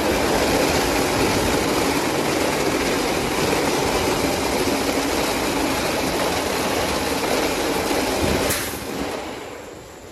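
Christ Genius Vitesse rollover car wash gantry at work: a loud, steady rush of spraying water and running machinery. A click sounds about eight and a half seconds in, and the noise then drops away and fades.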